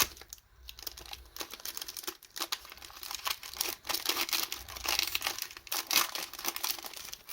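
Foil Pokémon booster pack wrapper crinkling and crackling as it is handled and torn open.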